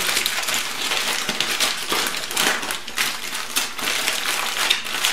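Aluminum foil crinkling and crackling without a break as hands fold it over and press it down into a tight seal.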